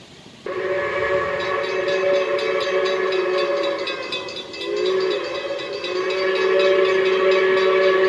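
Steam whistle of the Reading & Northern 425 steam locomotive blowing one long blast, a chord of several notes that starts suddenly about half a second in. Around the middle it wavers and eases briefly, then swells louder again.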